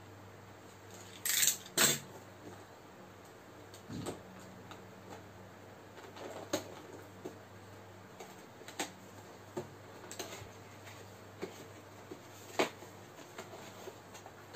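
Plastic and cardboard packaging of a boxed action figure being handled and opened: scattered small clicks and crinkles, with two sharper crackles about a second and a half in, over a steady low hum.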